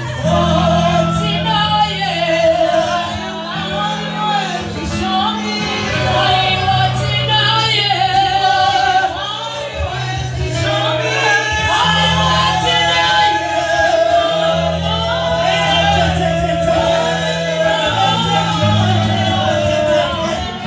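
Gospel singing by a congregation with male voices, over a steady bass accompaniment, echoing in a large hall.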